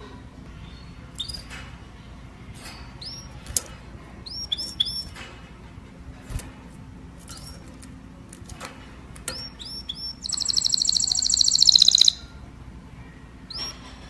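Canary singing: short, sharp, high chirps scattered through, then a loud, fast rolling trill of about two seconds that stops abruptly, followed by one more chirp near the end.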